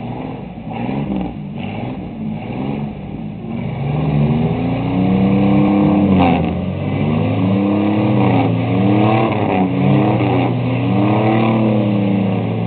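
Pickup truck engines revving hard under load as one pickup pushes another through a flooded mud hole. The engine note rises and falls in repeated surges about every two seconds and gets louder about four seconds in.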